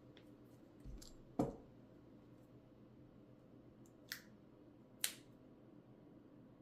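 Faint clicks and taps of small tools and phone parts being handled during smartphone reassembly: a dull knock about a second and a half in, then two sharp clicks near the four- and five-second marks.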